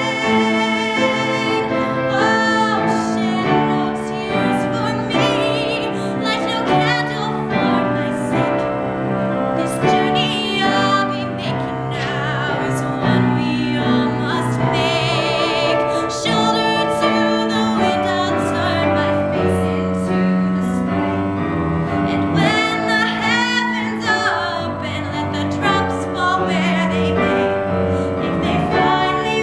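A woman singing a musical-theatre ballad solo with a strong vibrato, over piano accompaniment.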